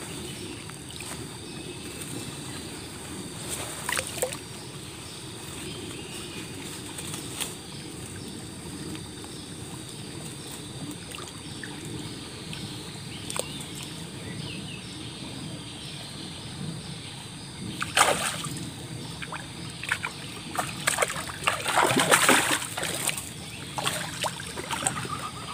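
Water splashing as a hooked baung catfish thrashes at the surface and is scooped up in a landing net: short splashes a few seconds in and past the middle, then a louder run of splashing near the end, over a low steady wash of river water.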